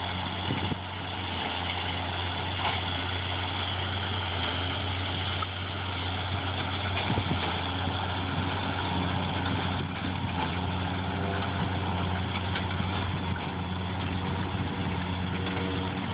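Tractor diesel engine running at a steady speed.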